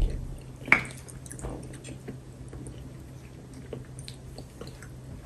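Quiet eating sounds from someone eating pounded yam and catfish pepper soup: chewing and soft wet mouth sounds with scattered light clicks, one sharper click a little under a second in.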